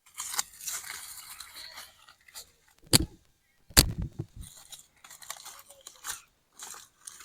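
Rustling and scraping handling noises, with two sharp knocks about three and four seconds in.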